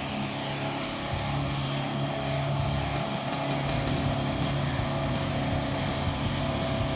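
Mitsubishi 4WD's engine running steadily under load in low-range first gear at a steady throttle, as it climbs a steep, slippery dirt track.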